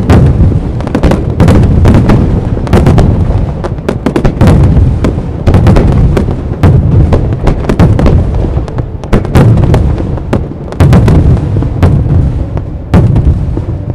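Aerial fireworks shells bursting in a rapid barrage: loud booms several times a second mixed with crackling, the barrage stopping near the end.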